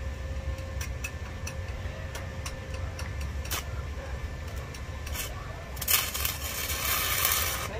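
Stick welding on steel window-grill bars with a small inverter welder: a string of short sharp clicks as the electrode touches and strikes, then about six seconds in the arc burns with a loud steady hiss for about a second and a half. A low steady rumble runs underneath.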